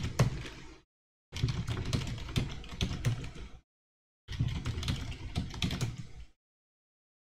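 Typing on a computer keyboard: three runs of rapid keystrokes separated by short silent pauses.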